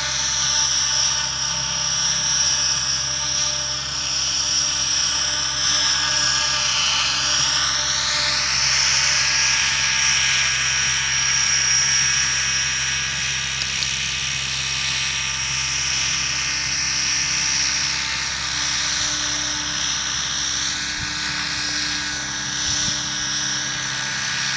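Large nitro RC trick helicopter flying, its engine and rotors making a steady high-pitched whine. The pitch sweeps down and back up about a quarter of the way in and again toward the end as it manoeuvres.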